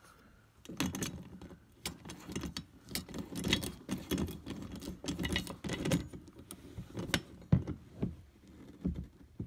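Metal tools and cart hardware being worked with a socket ratchet: irregular sharp clicks, clinks and knocks.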